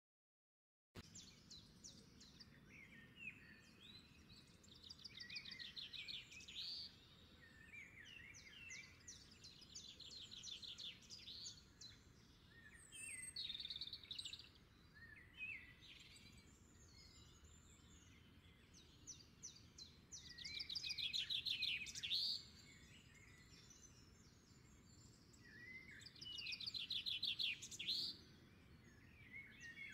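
Songbirds singing faintly: trilling phrases of rapid repeated notes, each a second or two long, coming every few seconds with short chirps between.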